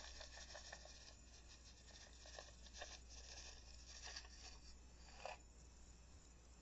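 Near silence with faint rustling and a few soft crackles, the loudest about five seconds in.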